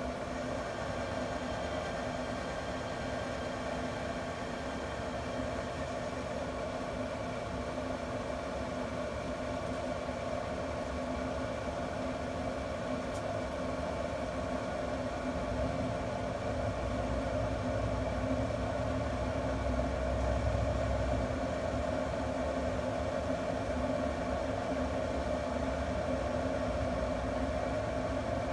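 Pellet grill's combustion fan running with a steady mechanical hum. A low rumble swells for a few seconds about halfway through.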